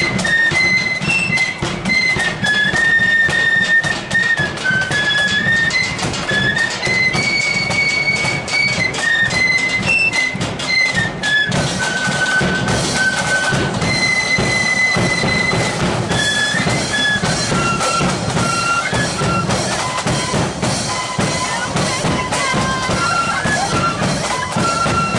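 Marching flute band playing a tune in unison on flutes over a steady march beat on the drums. The melody moves in held, stepping notes.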